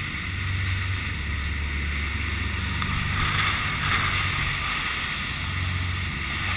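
Engines of a 54-foot custom Carolina sportfishing boat running hard through rough seas: a steady low drone under the hiss of spray off the hull and wind buffeting the microphone, the spray swelling briefly about three seconds in.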